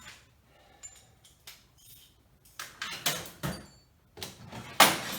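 Hand tools being swapped and handled: a string of short metallic clicks and clatters, with the loudest clatter near the end.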